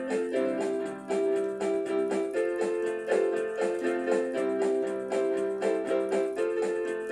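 Keyboard music: electric-piano-style chords held and re-struck in a steady rhythm.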